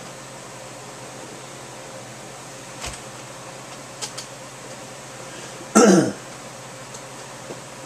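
A person's short, loud cough about six seconds in, over a steady background hum and hiss with a few faint clicks.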